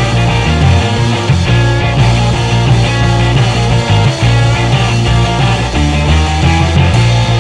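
Rock music with electric guitar and a steady bass line.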